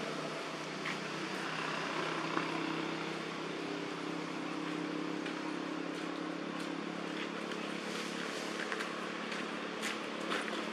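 A steady mechanical hum of an unseen machine running, with an even hiss over it and a few faint scattered clicks.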